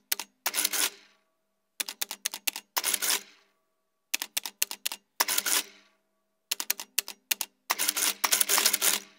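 Typewriter keys being struck in short runs of separate clicks, each run ending in a longer, denser rattling burst, four runs with brief pauses between them.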